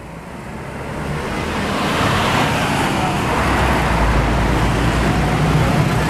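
Bus diesel engine and traffic noise growing louder over the first three seconds or so, then holding at a steady rumble.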